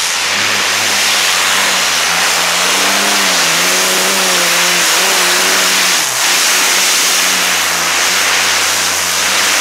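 Modified pulling tractor with several supercharged engines running at full throttle as it drags the weight-transfer sled, loud and steady. The engine note wavers in the middle and dips briefly about six seconds in.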